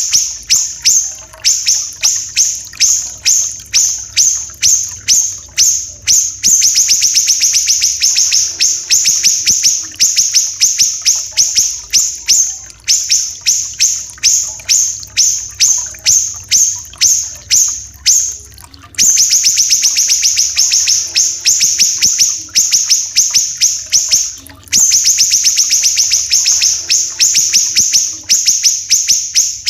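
A siri-siri kecil singing: rapid strings of sharp, high chirps that run together three times into long, dense trills, over a faint trickling-water effect.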